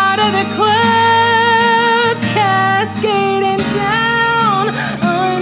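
A woman singing a string of long held notes over acoustic guitar in a country-style song.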